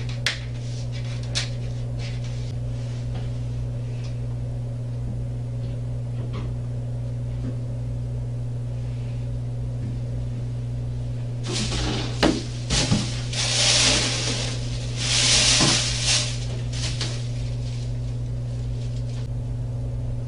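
Steady low hum of a small-room recording, with a few light clicks and, from about twelve to sixteen seconds in, a run of rustling and knocks from someone handling papers and things at a table.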